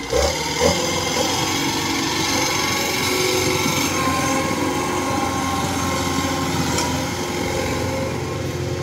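Kubota combine harvester's diesel engine running steadily under load, with a high mechanical whine over the drone, as the tracked machine crawls down into soft, boggy paddy mud.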